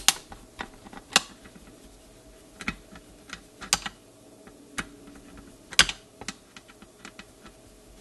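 Irregular small clicks and taps of a screwdriver working loose one of the small screws that hold the Telechron clock motor to a NuTone door chime base's circuit board, with a few sharper clicks among them.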